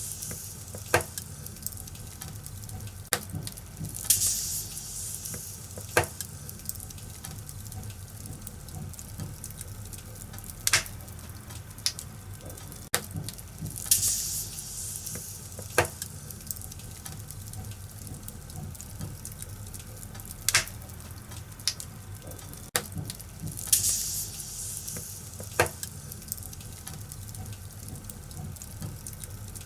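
Wood fire in a fireplace crackling, with sharp pops every second or few seconds over a low steady rumble, and a brief hissing rush about every ten seconds.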